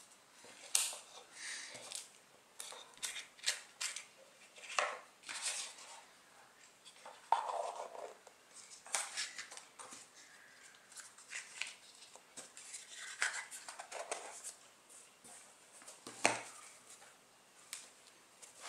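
Tissue paper rustling and crinkling in short irregular bursts as it is unwrapped by hand; near the end, a cotton drawstring pouch being handled.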